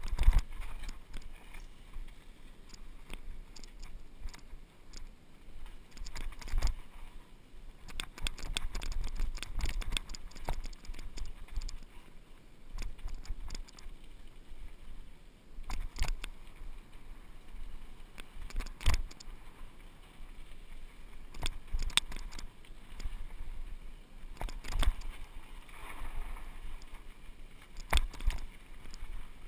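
Hardtail mountain bike clattering down a rocky dirt trail: irregular sharp knocks and rattles as the bike jolts over rocks, over a steady low rumble.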